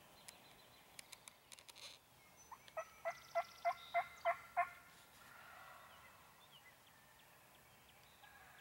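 A wild turkey yelping: a run of about seven loud, evenly spaced yelps at about three a second, preceded by a few faint clicks.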